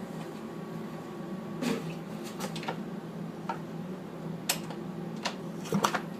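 An engine running with a steady low hum and irregular sharp clicking knocks over it, which the uploader asks about as possible piston slap.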